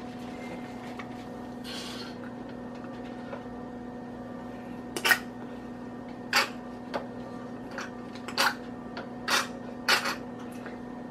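Six or so sharp clicks and taps, a little over a second apart, starting about halfway through, as a plastic marinade-injector syringe is knocked against a small bowl while being refilled with melted butter. A steady low hum runs underneath.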